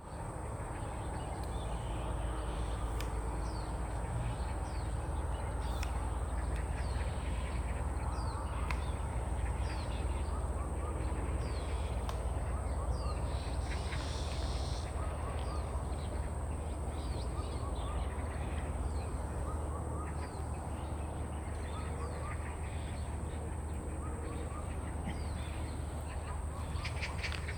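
Outdoor bird calls: many short, high chirps scattered throughout, over a steady low rumble and a constant high-pitched hum.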